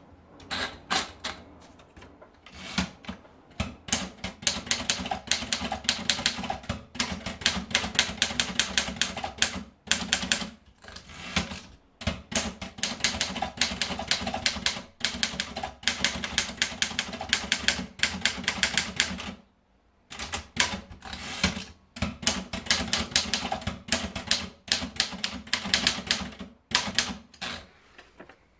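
Remington Rand 2000 typewriter being typed on: fast runs of key strikes with short pauses, and a brief stop about two-thirds of the way through.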